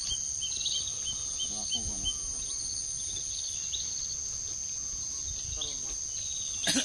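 Steady, high-pitched drone of insects, with a bird calling in short repeated chirps during the first couple of seconds. There are faint voices, and one louder voice near the end.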